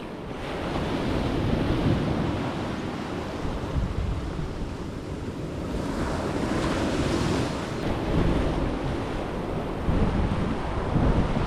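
Ocean surf washing up the beach, one wave swelling and hissing about six seconds in, with wind buffeting the microphone.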